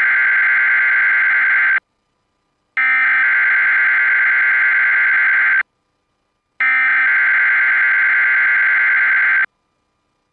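EAS/SAME digital header sent three times over NOAA Weather Radio to start a Required Weekly Test: three harsh, buzzy data bursts of about three seconds each, with a second of silence between them.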